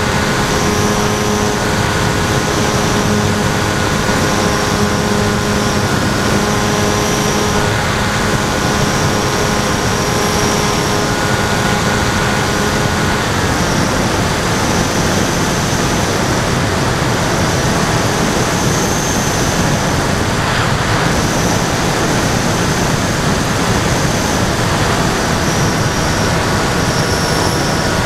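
Rush of air over an onboard camera on an FX-61 Phantom flying wing, with the steady whine of its NTM 2836 brushless motor and 10x5 propeller. The motor tone drops away about halfway through, leaving mostly the rush of air.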